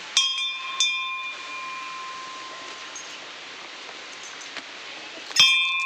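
A hanging metal temple bell struck three times, twice in quick succession near the start and once more about five seconds in, each strike ringing on and slowly fading.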